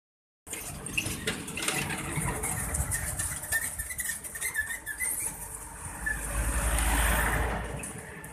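Outdoor ambience with scattered clicks and small bird chirps, then a road vehicle passing, swelling to its loudest about seven seconds in and fading.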